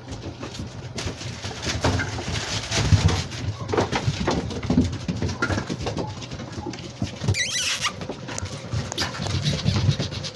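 Seven-week-old Labrador retriever puppies playing, with short yips and whines among scattered clicks and knocks on a tiled floor.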